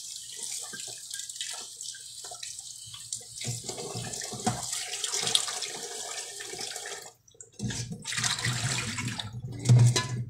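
Kitchen tap running into a stainless steel sink while a green vegetable is rinsed under the stream, with small clattering. The water breaks off briefly about seven seconds in, runs again, and there is a thump shortly before it stops abruptly.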